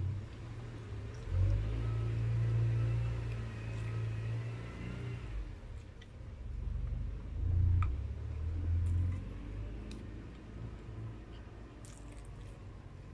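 A low engine-like rumble with a faint steady hum above it, swelling twice, with a few sharp chewing clicks in between.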